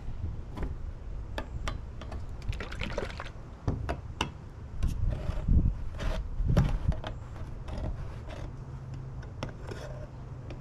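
Metal paint can key prying at the lid of a paint can: a string of irregular sharp metal clicks and scrapes as the lid is worked loose.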